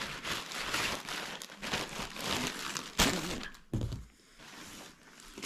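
Plastic packaging bag rustling and crinkling as it is handled. About three seconds in there is a sharp knock, and a dull thump follows just after as hands go into a cardboard box.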